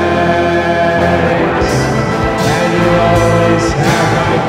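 Live rock band playing a slow song: organ, electric guitar, bass guitar and drum kit, with cymbals struck several times.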